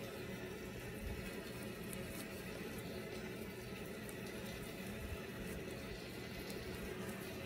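Faint rustling and small ticks of laces being pulled and tightened through the eyelets of a leather lace-up boot, over a steady low room hiss.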